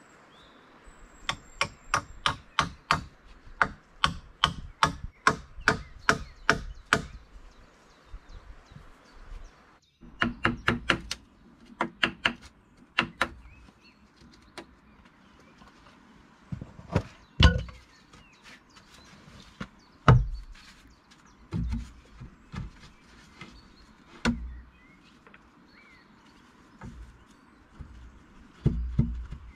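Hatchet blows on wood: a quick, even run of sharp strikes, about three or four a second, for the first several seconds. Then shorter groups of strikes and a few single heavier knocks with a dull thud.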